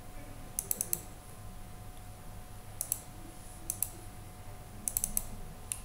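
Computer mouse button clicking in quick pairs and short runs, a few times over several seconds, as files and menu items are clicked, over a faint steady hum.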